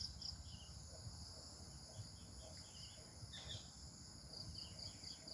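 Faint chorus of crickets chirping, a steady, pulsing high trill with short chirps scattered through it.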